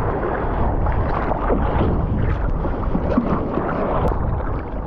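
Wind buffeting the microphone over water splashing and sloshing, a steady rough noise with no clear rhythm.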